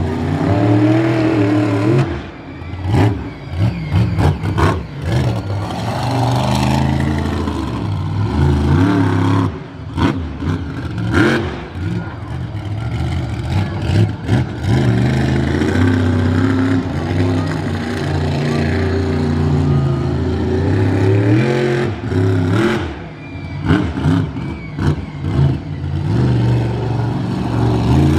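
Monster truck engine revving hard, its pitch rising and falling again and again as the truck accelerates and slows, with sharp crunching impacts about ten to fourteen seconds in as it drives over a scrapped car.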